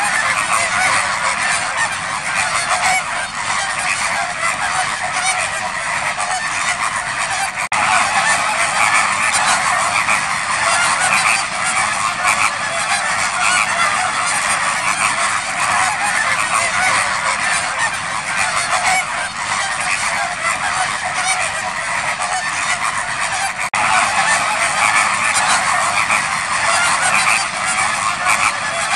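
A large flock of greater flamingos calling continuously: a dense, steady chorus of many overlapping honking calls.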